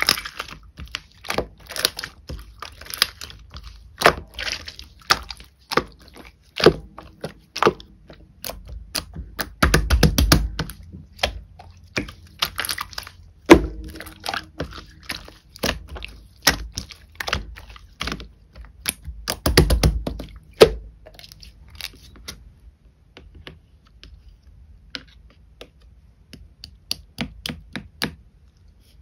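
Pearl slime being squished and pressed by hand: a quick, irregular run of sticky clicks and pops, with two denser squelching stretches about ten and twenty seconds in. The clicks thin out and grow quieter after about twenty-two seconds.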